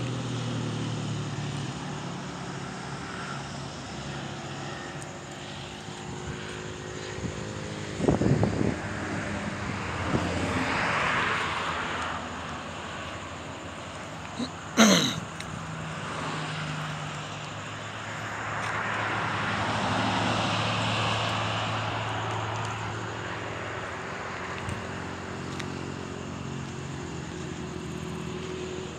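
An engine runs steadily in the background, swelling up and fading twice. Short knocks come about eight seconds in, and one sharp knock with a falling tone about fifteen seconds in.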